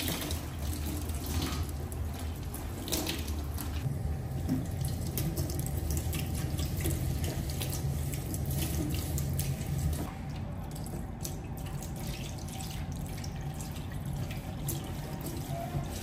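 Water running from a kitchen tap into the sink, with scattered small clicks and knocks; it gets a little quieter about ten seconds in.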